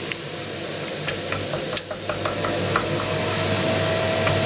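Wooden spatula stirring sour cream and toasted flour in a frying pan, a run of short scrapes and clicks against the pan over a steady background hiss. A thin steady tone comes in about three seconds in.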